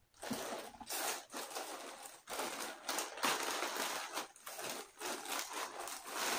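Clear plastic bag around a kitchen towel crinkling as it is handled, in irregular rustling bursts.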